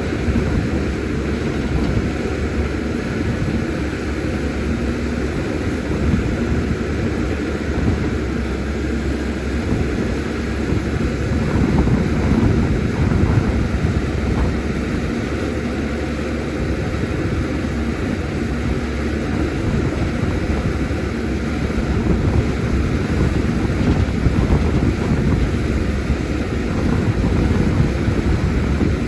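CAT 320D excavator's diesel engine running steadily, its level swelling a little now and then as it works.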